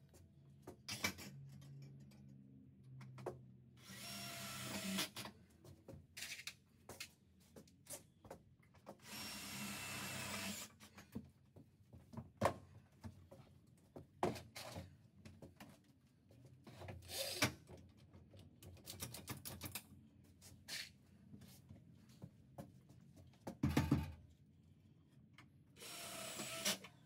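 Cordless drill driving sheet metal screws into the steel roof ribs of a van, in three short runs of about a second each, to tack the ribs temporarily in place. Scattered clicks and knocks of metal parts and handling come between the runs.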